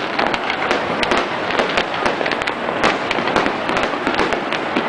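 Fireworks display going off in a dense, continuous barrage of bangs and crackling, many reports a second with no pause.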